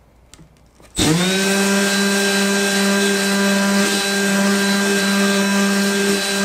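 Milwaukee M12 Fuel orbital detail sander with a brushless motor, at speed three, spinning up about a second in and then running at a steady pitch. The hiss of its 80-grit sheet sanding black paint off plywood runs under the motor.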